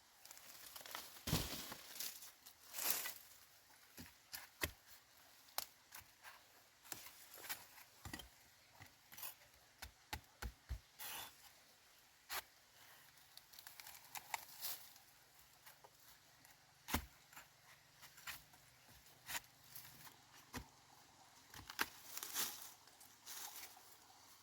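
Irregular small clicks, knocks and rustling, like things being handled, with a few longer tearing or crinkling rustles about a second in, around three seconds in and near the end.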